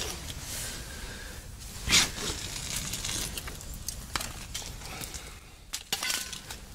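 Handling noise at an ice-fishing hole: rustling and small clicks and scrapes as fishing line is pulled in by hand, with one louder sharp knock about two seconds in.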